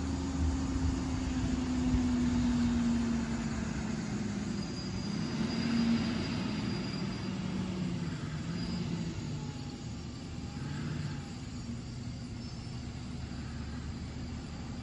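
Garbage truck's diesel engine running as the truck comes down the street, its engine note falling as it slows and pulls up at the curb, then settling to a lower, steady drone.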